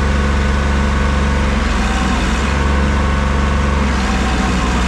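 Mahindra JIVO 365 compact 4x4 tractor's three-cylinder diesel engine running steadily under load as it pulls against a truck chained to it, a loud, even drone that holds its pitch.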